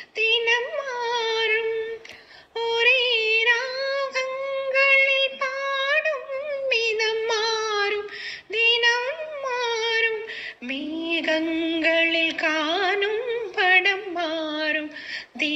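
A woman singing a Tamil film song in a high, ornamented melodic line. A little after two seconds there is a brief pause. About ten and a half seconds in, the voice drops to a lower pitch.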